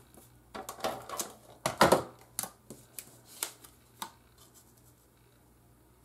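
Scotch Advanced Tape Glider laying adhesive onto small cardstock squares, with clicks and paper rustles as the pieces are handled and pressed together; the sounds stop about two seconds before the end.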